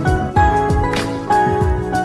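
Background music: a song with sustained melody notes over a steady beat.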